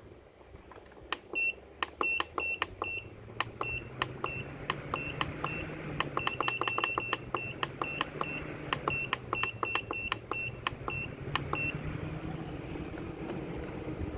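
Rechargeable folding camping fan being worked through its control button: many short high beeps, each with a click, come in quick irregular runs for about ten seconds. Underneath, the fan motor's low hum rises and falls in pitch as the speed setting changes.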